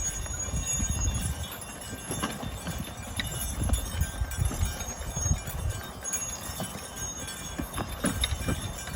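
Belgian draft horses working a plough: irregular low, heavy hoof thuds on the field soil.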